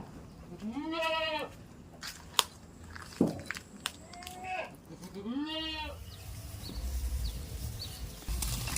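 Goat bleating: two drawn-out bleats that rise and fall in pitch, about four seconds apart, with a shorter call between them and a few sharp clicks.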